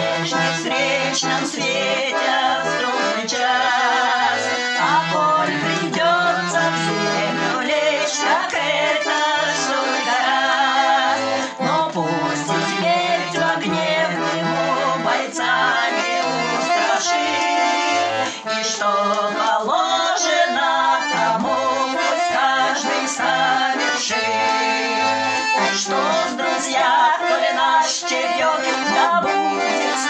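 Russian garmon (button accordion) playing chords and melody, accompanying two women singing a slow Russian wartime waltz.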